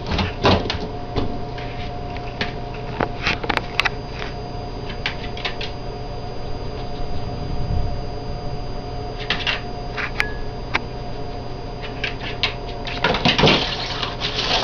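A steady electrical hum, with scattered light clicks and knocks, and a louder run of rustling and clattering near the end.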